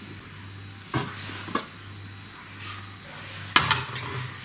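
Aluminium lid lifted off a large aluminium stockpot: a couple of faint knocks, then a sharp clank about three and a half seconds in, over a low steady hum.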